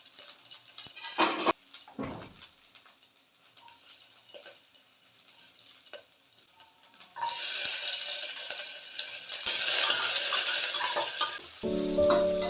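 Cooking at a stove: a few utensil knocks and scrapes, then from about seven seconds in a steady sizzle as food fries in a hot pan.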